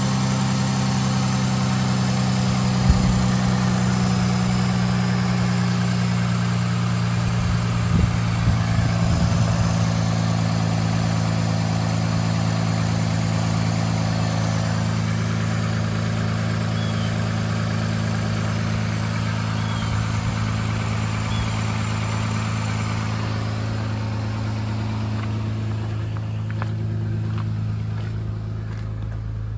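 Toyota Camry 3.5-litre V6 engine (2GR-FE) idling steadily under the open hood. Its sound grows duller near the end as the microphone moves away from the engine bay toward the cabin.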